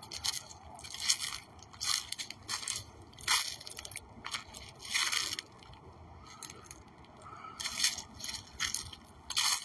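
Footsteps crunching through dry leaf litter and twigs, about one step a second, pausing for a couple of seconds past the middle.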